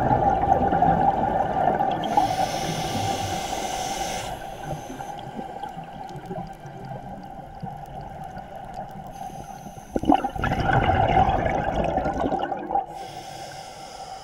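Scuba diver breathing through a regulator underwater: a hissing inhalation about two seconds in and again near the end, and a rumbling rush of exhaled bubbles about ten seconds in. A steady hum runs underneath.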